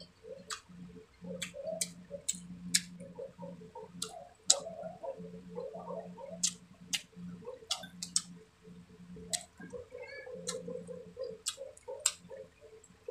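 Close-up chewing sounds of a person eating grilled fish and rice by hand: wet mouth clicks and lip smacks, a dozen or more sharp ones scattered irregularly throughout.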